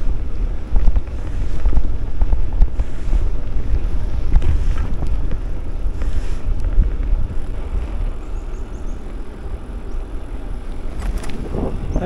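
Wind rumbling on the microphone while riding a bicycle, a low uneven rumble that swells and dips.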